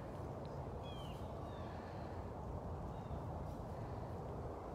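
Faint, short bird chirps, a few falling in pitch, about a second in and again near three seconds, over a steady low background noise.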